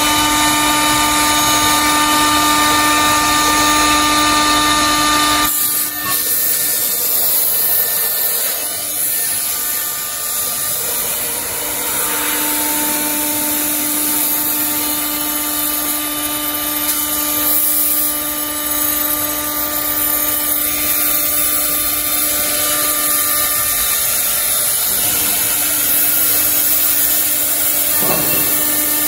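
Multi-function woodworking drilling and milling machine running a job: its spindle cutting a wood panel under brush dust hoods with dust extraction running. A loud, steady machine sound with several held tones that shift about five seconds in and again near twelve seconds.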